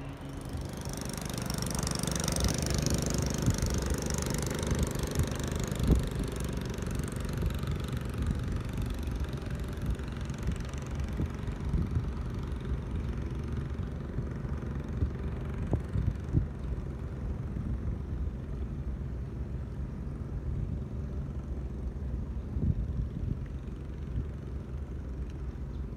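Wind rumbling on the microphone over the steady running of a boat engine on the river, with a few sharper buffets.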